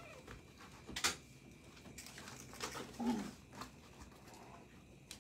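Faint sounds of a litter of puppies nursing on their mother, with a few small noises, the clearest about three seconds in. A sharp click comes about a second in.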